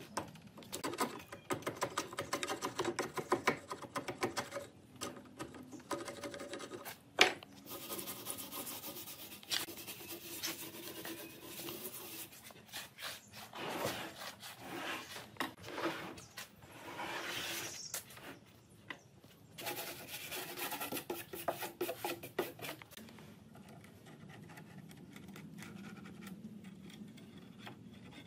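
Hand chisel scraping the rotten, crumbling edge of an old wooden slab in repeated short strokes. There is a single sharp knock about seven seconds in, and the scraping falls quieter over the last few seconds.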